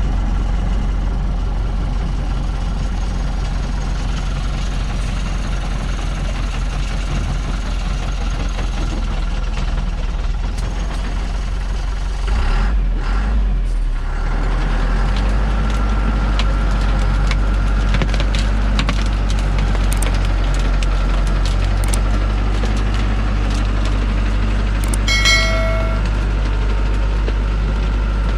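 Heavy truck's diesel engine running under load as it works a load of acacia logs up a muddy slope, its rear wheel buried in mud. The engine note dips briefly about halfway through, then runs steadier and a little louder, with scattered cracks and clicks and a short high tone near the end.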